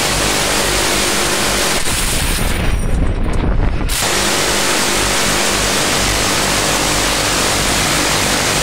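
Quad minigun mount firing long bursts, its rotary barrels cycling so fast that the shots merge into one continuous buzzing noise. The high end briefly drops away between about two and four seconds in, then the full noise resumes.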